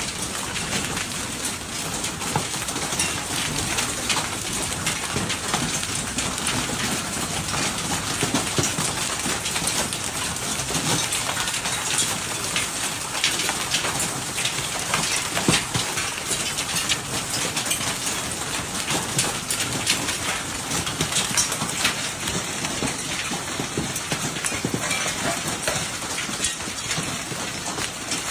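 Hail and rain pelting down on hard surfaces: a dense, steady clatter of many separate impacts over a rushing wash of falling water.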